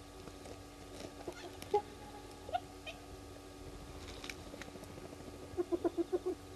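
Spotted hyenas calling while feeding on a kill: two short calls in the first few seconds, then near the end a quick run of about six short yelps, with scattered faint clicks between them.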